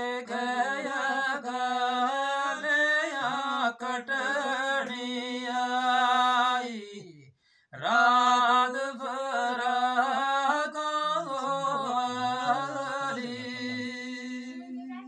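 A man singing a Gojri devotional kalam unaccompanied, in long drawn-out melismatic phrases, with a short breath break about halfway through.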